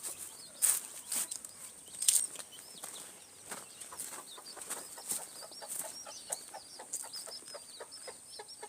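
Chickens clucking, with a rapid run of short, high peeping calls through the second half. Two sharp knocks stand out as the loudest sounds in the first two seconds.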